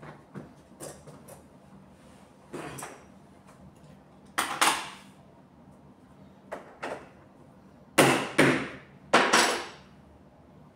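Hand staple gun firing about six sharp shots, mostly in quick pairs, while fastening fabric to the bed base, with lighter clicks and handling knocks between.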